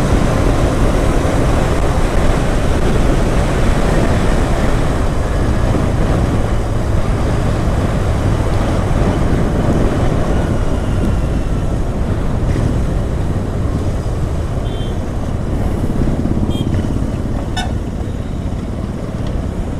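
Royal Enfield Interceptor 650's parallel-twin engine and exhaust running under way as the motorcycle is ridden along a road, easing off slightly in the last few seconds. There are brief horn toots from surrounding traffic near the end.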